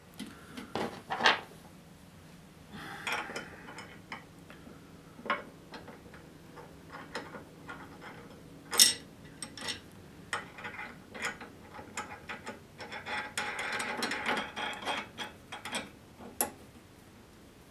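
Scattered metal clicks and clinks of hand work on a bolt, lock washer and nut being fitted to a wood lathe's tailstock, with one sharper click about nine seconds in and a busier stretch of rattling about thirteen to fifteen seconds in.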